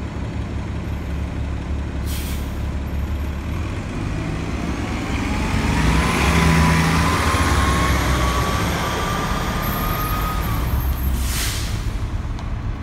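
2014 Gillig Low Floor BRT transit bus idling, with a short air-brake hiss about two seconds in. It then pulls away, its drivetrain whine rising steadily in pitch as it accelerates and cutting off shortly before a second short air hiss near the end.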